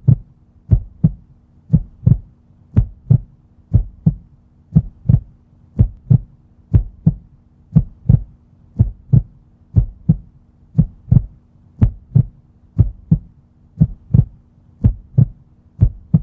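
Heartbeat sound effect: paired low thumps, about one beat a second, over a faint steady hum, cutting off at the end.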